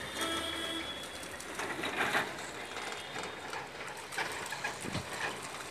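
Dogs wading in a shallow muddy puddle, with a few irregular splashes over steady outdoor background noise.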